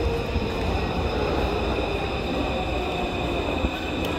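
Taipei Metro C341-type electric subway train pulling into the station platform: a continuous low rumble with a steady high-pitched whine over it.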